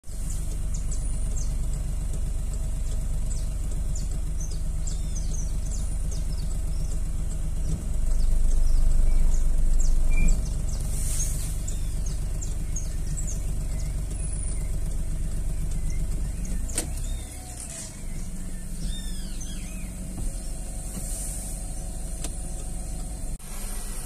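A steady low mechanical hum with a fast pulsing texture, louder for about two seconds some eight seconds in and dropping lower about seventeen seconds in. Short high bird chirps are scattered over it.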